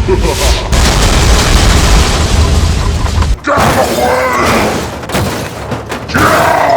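A loud boom with a heavy low rumble, like an explosion or crash sound effect, that cuts off suddenly after about three and a half seconds, followed by a person's cries or groans.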